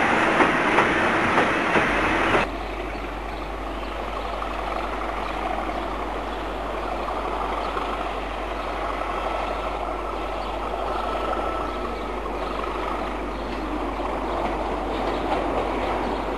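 Loaded coal hopper wagons rolling over a viaduct with a regular clickety-clack of wheels over rail joints, cut off abruptly about two seconds in. After that, a Class 37 diesel locomotive running light engine, its English Electric V12 a steady engine sound, with a faint high whistle in the middle.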